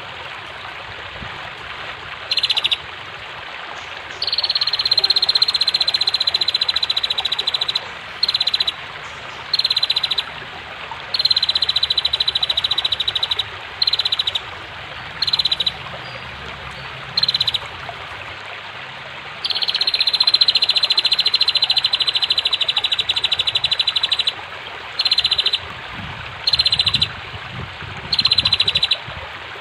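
Female prenjak (prinia) calling in rapid, high ticking trills, about a dozen bursts, most brief and two running several seconds, over the steady rush of flowing water.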